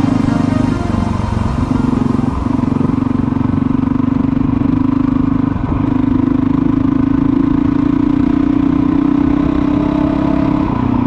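Motorcycle engine running at a steady pitch under a low rumble, the note dipping briefly a few times.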